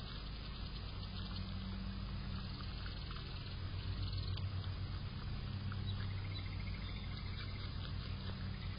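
A groundhog chewing food close to the microphone, with faint scattered crunching ticks. A steady low hum runs under it.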